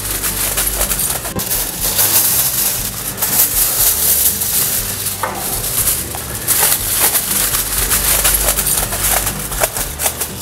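Sheet of aluminium foil crinkling and crackling loudly as it is handled and spread out over a baking tray.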